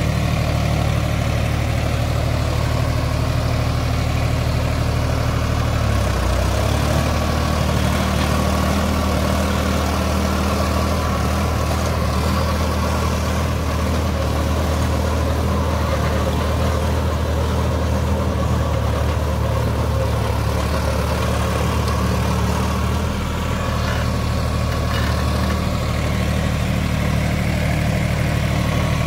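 Sonalika DI 47 RX tractor's diesel engine running steadily under load while driving a Shaktiman rotavator that churns stubble soil. The engine note wavers briefly about six seconds in, then settles again.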